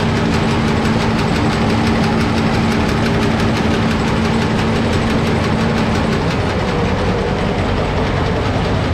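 Combine engine running at full throttle, driving the draper header's wobble box so the sickle knife runs back and forth very fast: a steady, rapid mechanical clatter over the engine's hum.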